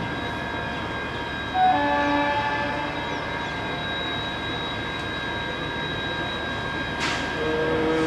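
Multi-tone air horn of EMD WDG-4 diesel locomotives: one blast starts about one and a half seconds in and fades over about a second and a half, and a second, shorter blast comes near the end. A steady high whine runs underneath, and a brief hiss comes just before the second blast.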